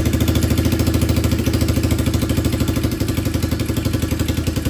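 Big-bore Honda CRF110 pit bike's air-cooled single-cylinder four-stroke engine idling steadily just after its first start on E85 fuel, with an idle that may need adjusting.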